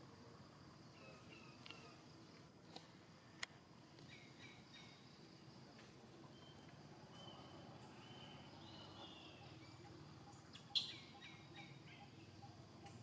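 Quiet outdoor ambience with clusters of short, high chirping calls and two faint sharp clicks. One louder sharp call comes about eleven seconds in.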